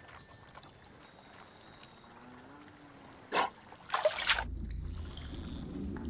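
Water splashes twice, about three and four seconds in, as a swimmer plunges under. The sound then turns muffled and underwater, a low steady rumble with several dolphin whistles sweeping up in pitch.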